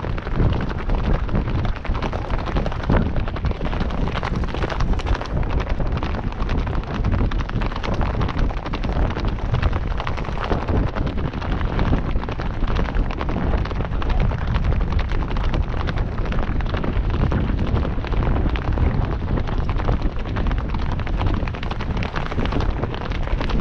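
Constant rumble of wind and motion buffeting an action camera's microphone on a running horse, mixed with irregular hoofbeats from it and the other horses running close by on a dirt trail.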